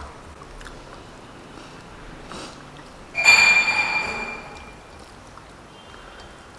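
A glass or tumbler clinks about three seconds in, with a ringing tone that dies away within about a second, over quiet room noise.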